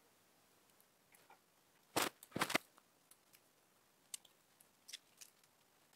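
Cold, brittle paper birch bark cracking and tearing as it is pulled off the trunk: two short, loud tearing crackles about two seconds in, then a few faint ticks.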